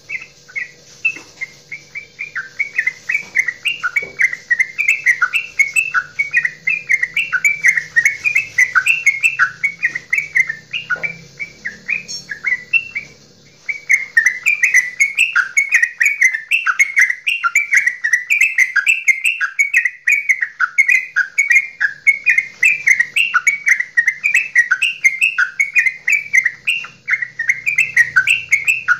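A yellow-vented bulbul (trucukan) singing its long, loud 'goklikan' chatter: a fast, bubbly run of repeated warbled notes, several a second. It breaks off briefly about halfway through, then picks up again. A steady hiss runs behind it.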